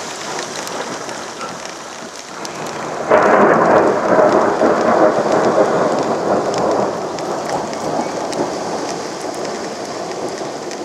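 Heavy rain falling steadily on a flooded street, with a sudden thunderclap about three seconds in that rumbles on and fades away over several seconds.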